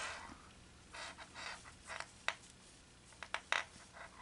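Faint rustling of yarn being worked with a metal-headed crochet hook into double crochet stitches, with a few light clicks, the sharpest about two seconds in and a quick cluster of three near the end.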